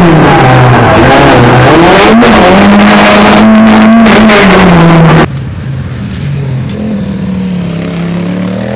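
Competition car's engine at full throttle, heard from inside the car, its pitch climbing and dropping back with each gear change. About five seconds in it cuts suddenly to a quieter motorcycle engine whose pitch rises as it accelerates out of a bend.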